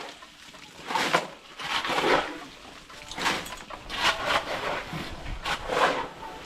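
Repeated scraping strokes of shovels through a concrete mix of ballast, cement and sand, about one stroke a second.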